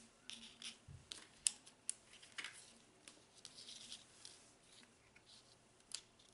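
Small clicks and rustling from a handheld digital multimeter, its test leads and a power plug being picked up and handled, with a sharp click about one and a half seconds in and another near the end. The motor is not running.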